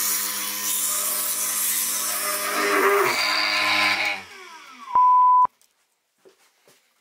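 Electric power tool running with a steady motor hum and a harsh abrasive hiss, used in cleaning rust off an old wrench. About four seconds in it is switched off and winds down with falling pitch. A short, loud, steady high beep follows, then near silence with a few faint clicks.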